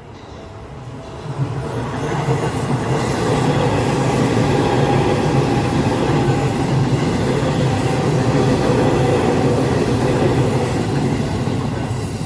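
A Seibu Railway electric train passing over a level crossing. The rumble and rail noise swell about a second and a half in, stay loud, and ease off near the end. The crossing's warning bell rings at the start and is drowned out as the train goes by.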